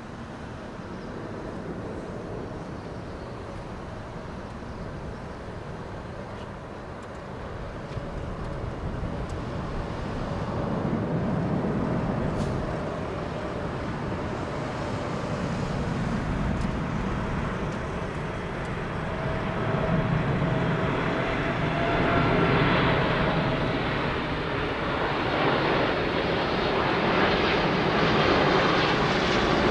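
Four GEnx turbofan engines of a Boeing 747-8F freighter on final approach: a broad rumble with a steady whine, growing steadily louder as the aircraft comes closer.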